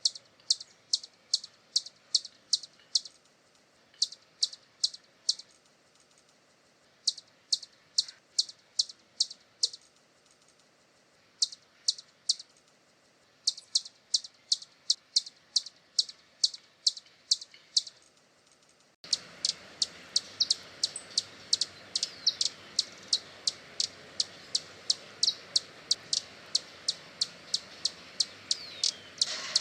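Hummingbird giving long series of high, sharp chip notes, about two or three a second, in runs broken by short pauses. About two-thirds of the way through a steady hiss comes in under them, like a switch to another recording, and the chipping goes on.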